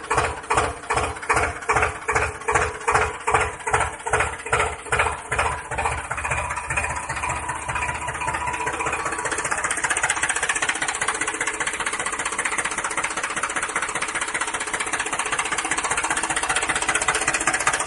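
Tractor engine sound: a slow chugging at about three beats a second for the first six seconds, then a faster, steady running for the rest.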